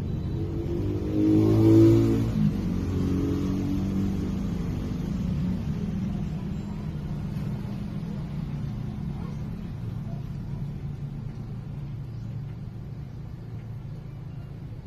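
A motor vehicle's engine, loudest about two seconds in as it goes by, then a steady low engine hum that slowly fades.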